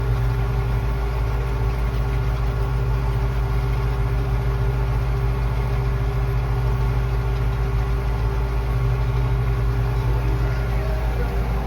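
Vehicle engine running at a constant speed, a steady low drone with no change in pitch or level.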